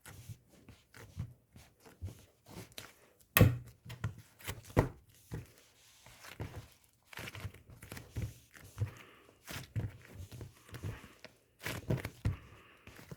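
Slime being squished and stretched by hand, giving irregular sticky clicks and pops.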